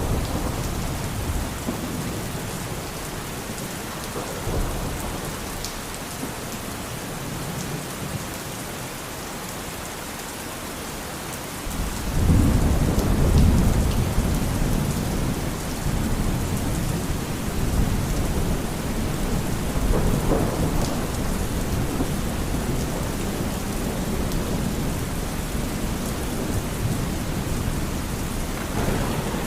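Steady heavy rain with thunder; a loud, low rumble of thunder swells up about twelve seconds in and rolls on for several seconds, with a softer rumble later.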